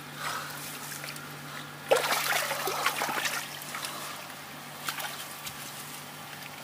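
Hands splashing and sloshing in shallow muddy water among duckweed and grass. The splashing starts sharply about two seconds in and is loudest for about a second and a half, with a few small splashes later.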